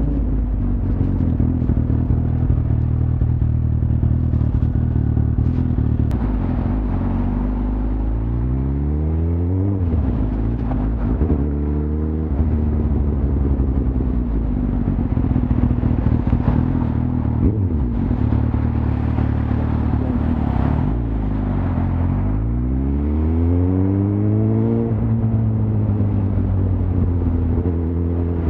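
Suzuki GSX-R1000's inline-four engine running on the move, its pitch climbing under acceleration about eight seconds in and again after about twenty-two seconds, over a steady hiss.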